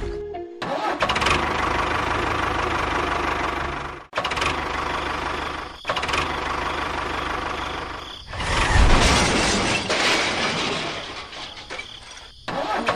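Engine running steadily with a knocking hum, heard in several short segments that cut in and out abruptly.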